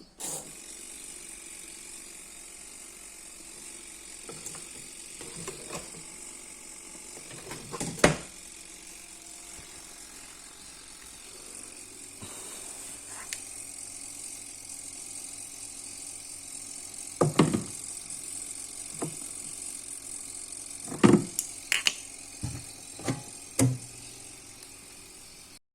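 A steady high hiss and whine with a few scattered knocks and rattles. The loudest knocks come about 8 s in and in a cluster near the end.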